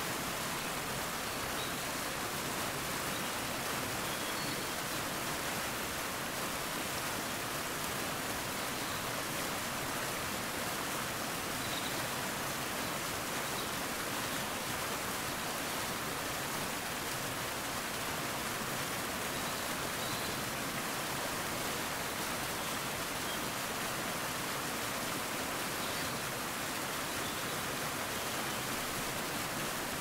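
Waterfall pouring into a pool: a steady, even rush of falling water with no breaks or changes.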